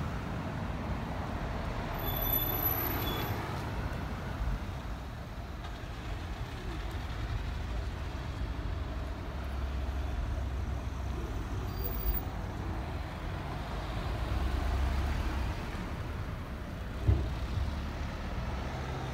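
Street traffic: a delivery lorry and other vehicles passing with a steady low rumble that swells twice, a brief high whine about two seconds in, and a single knock near the end.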